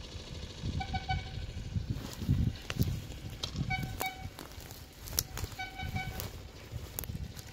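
A horn sounds three short toots, spaced about two seconds apart, over a low rumble, with several sharp clicks in between.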